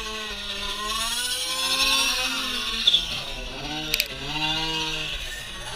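Radio-controlled cars' motors running and revving, several pitches rising and falling over one another, with two short sharp knocks about three and four seconds in.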